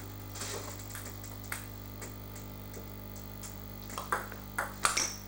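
Table tennis ball being hit back and forth in a rally, sharp clicks off the bats and table. The hits are about a second apart at first, then come louder and quicker near the end.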